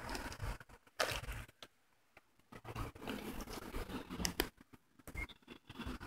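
Faint scattered scrapes and rustles with a few short clicks, the sharpest about a second in and again a little after four seconds in.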